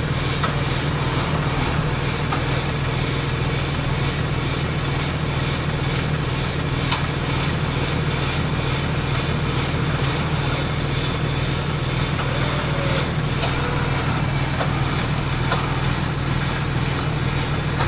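Ram 2500 pickup's engine running with a steady drone as the truck, on rubber tracks, pulls the stuck Ford Raptor back from the cliff edge through a side puller on taut tow straps.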